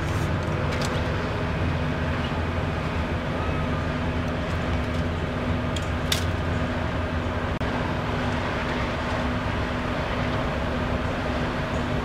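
Steady low rumble of vehicle engines and freeway traffic with a held hum, broken by a few brief sharp clicks near the start and about six seconds in.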